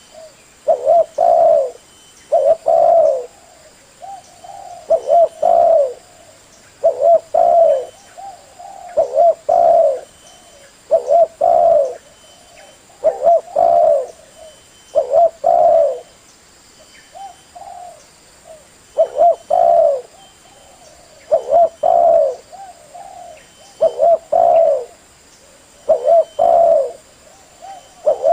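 Male spotted dove cooing in repeated phrases, each a quick run of coo notes, one phrase about every two seconds with softer coos between. This is the call used as a lure to draw other spotted doves.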